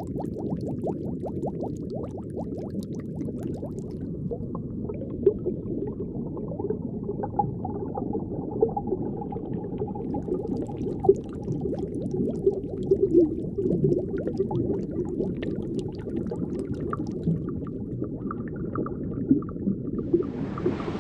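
Underwater ambience: steady bubbling and gurgling of water, with many small pops.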